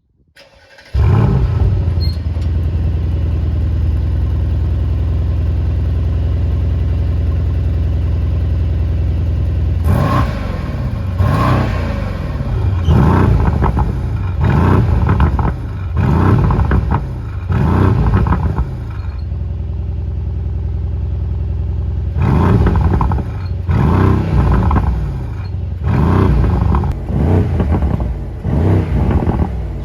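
Mercedes-AMG GLC 63 S's 4.0-litre twin-turbo V8 through its exhaust. It comes in about a second in and runs steadily at idle, then is revved in a quick series of blips that each rise and fall. It settles briefly back to idle and is revved again near the end.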